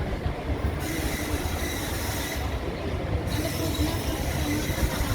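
ICF passenger coaches running along the track, heard from inside the coach: a steady low rumble of wheels on rail. A high hiss with a faint thin whine comes in about a second in, drops away briefly around the middle, then returns.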